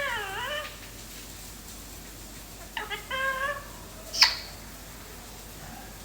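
Pet parrot calling: two short calls with wavering pitch about three seconds apart, then a single sharp, loud, high chirp about four seconds in.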